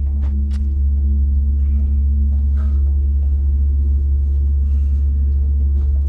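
Steady low droning soundtrack tone with a few fainter held higher tones above it, unchanging throughout; faint rustles and clicks sit over it.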